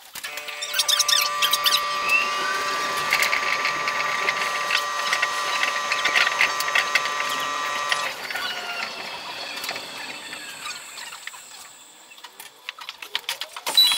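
Chiba Urban Monorail 0 series suspended monorail running between stations, its cab sound played at five times speed. For the first half there is a cluster of steady high tones with rapid clicking. It then turns quieter and rattly as the train runs on and slows, with sharp clicks near the end.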